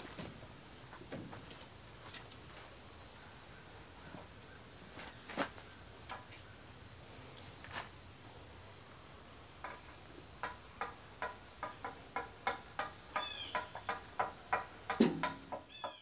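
Insects trilling steadily at a high pitch, breaking off about three seconds in and starting again a couple of seconds later. A scatter of light knocks and rustles comes in the last few seconds.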